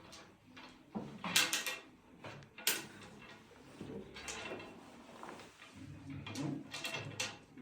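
A chiropractic treatment table knocking and creaking, with the rustle of a patient shifting position on it: a few sharp knocks about a second in, near three seconds and again near the end.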